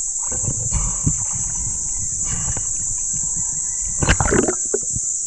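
Underwater sound recorded by an action camera during a spearfishing dive: a steady high hiss over low, irregular rumbling, with a louder brief rush of noise about four seconds in.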